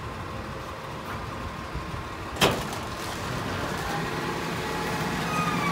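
Autocar rear-loader garbage truck's diesel engine running steadily, with one sharp bang about halfway through. The sound grows louder over the last seconds and a thin whine starts to come in near the end.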